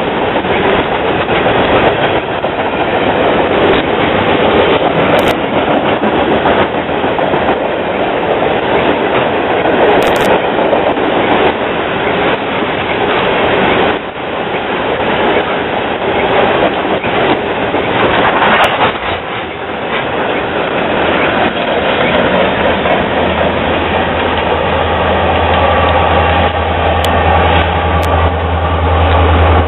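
Coal hopper cars of a freight train rolling past close by, a loud steady rumble of wheels on the rails. About three quarters of the way through, the steady low drone of diesel locomotive engines joins in as the lead Union Pacific locomotives pass.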